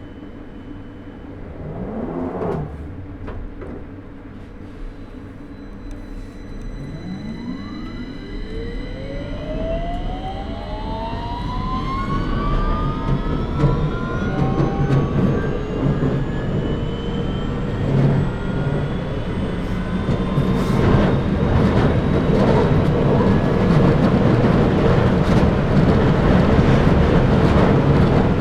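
London Underground 2009 Stock train pulling away from a station, heard on board: a brief whine dips and rises about two seconds in, then from about seven seconds in its traction motors whine in several tones that climb steadily in pitch as the train accelerates. The rumble and rail noise grow louder toward the end.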